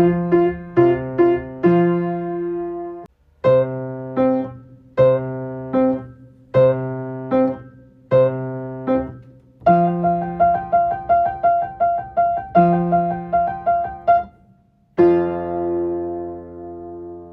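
Solo piano playing a simple passage of struck chords with short pauses, then a run of quick repeated notes that stops just before a final chord left to ring.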